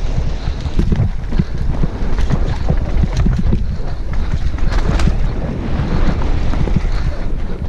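Wind buffeting a helmet-mounted action camera's microphone during a fast mountain bike descent on a dirt trail. Tyre noise runs underneath, and the bike over roots and rocks gives many quick knocks and rattles.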